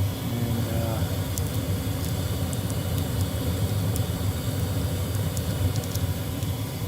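Trane gas furnace running after firing up: a steady low hum and rumble from its burners and fan, with a few faint light ticks.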